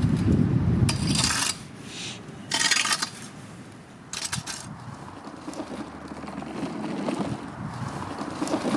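A rod raking and scraping through dry fallen leaves and grit on the ground, in a few short strokes during the first few seconds, then quieter.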